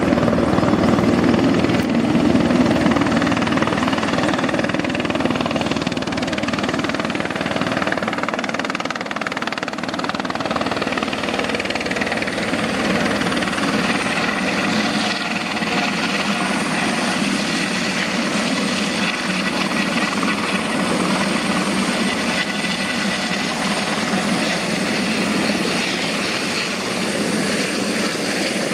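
Airbus EC130 B4 single-turbine helicopter with its Fenestron tail rotor, running steadily as it comes in and hovers low over the pad to land. The noise is a little louder at first, then stays steady.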